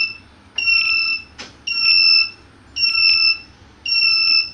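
Fire alarm sounder going off in alarm: a shrill tone of several pitches at once, pulsing on for a little over half a second about once a second, four pulses in all. A faint click falls between two of the pulses.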